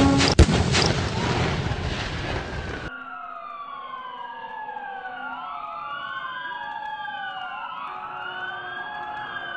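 Sound effects: a loud, explosion-like burst of noise with a sharp bang about half a second in, fading and then cutting off abruptly after about three seconds. Then several sirens wail at once, their rising and falling pitches overlapping.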